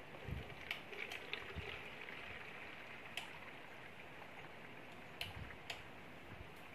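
Coconut milk poured slowly from a metal basin through a mesh cloth strainer into a plastic container: a faint steady trickle with a few soft ticks.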